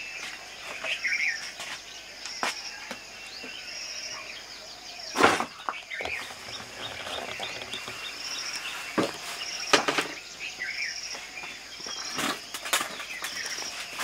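An insect chirps in short high trills that repeat every second or so. Several sharp knocks and clatters of debris being handled break in, the loudest about five seconds in.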